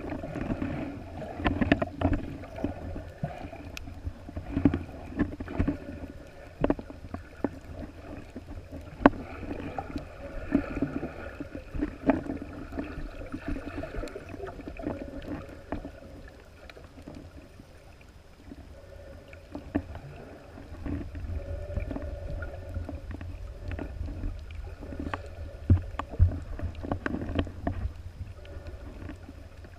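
Muffled underwater sound from a camera in a waterproof housing: water sloshing and a low rumble, with scattered sharp clicks and knocks. The low rumble grows stronger in the last third.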